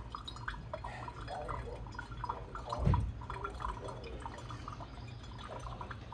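Drip coffee maker brewing: water dripping and gurgling in irregular small drops over a steady low hum, with one louder low thump about three seconds in.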